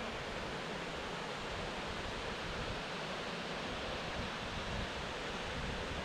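Steady rushing noise of flowing creek water, with uneven low wind rumble on the microphone underneath.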